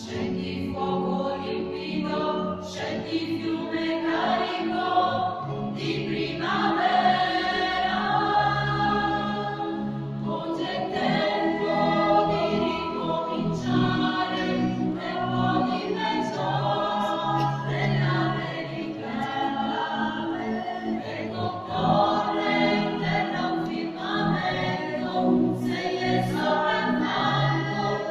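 Mixed choir singing an Italian church song in parts, phrases of held notes over a steady lower line, in a reverberant church.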